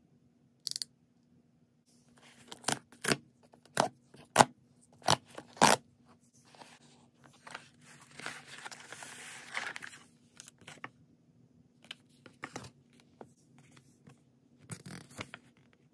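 Cardboard mailer box being torn open and unfolded by hand: a run of sharp cracks and tearing snaps about two seconds in, then a longer rustle of paper and card sliding out of the packaging, with a few light taps and a short rustle near the end.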